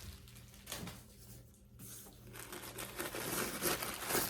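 Crinkly packing padding rustling and crumpling as it is pulled out of a new handbag, in irregular handfuls that grow busier toward the end.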